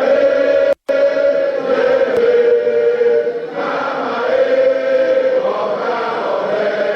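A chamber full of members of parliament chanting and singing together in unison, many voices holding and bending a tune. The sound drops out briefly just under a second in.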